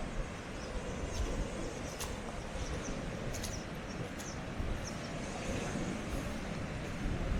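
Steady rumbling noise of the sea breaking on a shingle and rock shore, with faint short high chirps here and there.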